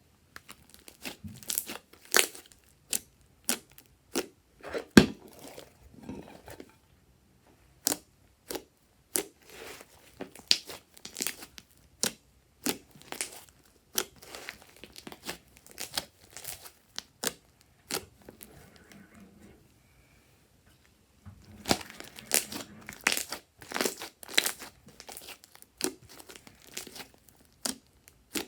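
Hands squeezing and stretching fluffy slime, a run of sticky crackles and pops with one sharper snap about five seconds in and a brief pause near the end.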